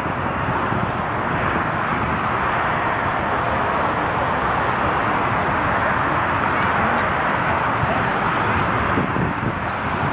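Jet airliner engines running, a steady, even rushing noise with no breaks.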